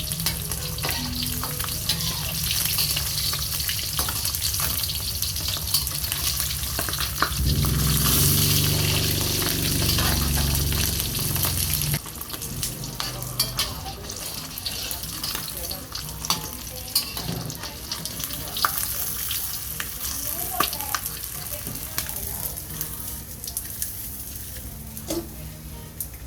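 Food frying and sizzling in a pan, a steady hiss with frequent sharp clicks of a utensil stirring against the pan. A low hum underneath swells for a few seconds and then cuts off suddenly about halfway through.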